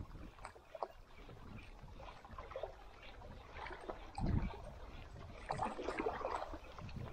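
Sea water lapping and sloshing in small irregular splashes against a small boat's hull, the biggest slosh a little past the middle, over a low rumble of wind on the microphone.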